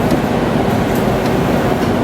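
Okuma ES-L10 CNC turning center running: a steady machine hum with several constant whining tones, and faint ticks now and then.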